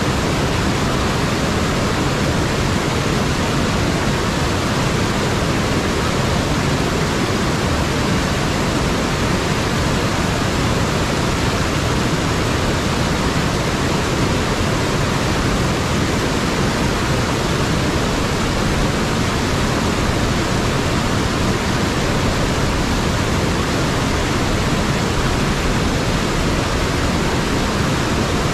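Rushing whitewater of a river cascade pouring over rocks: a loud, steady, unbroken roar of water.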